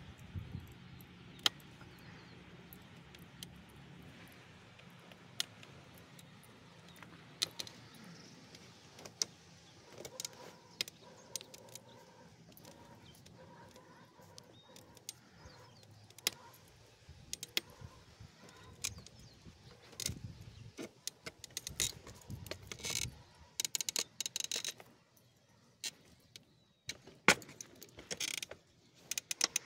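Light metallic jingling and clicking, as of a dog's leash clip and collar tags, in scattered short bursts that come thicker near the end. A faint low steady hum fades out about a third of the way in.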